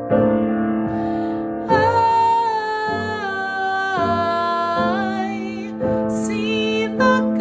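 A woman singing a slow, gentle children's song with long held notes, over piano accompaniment.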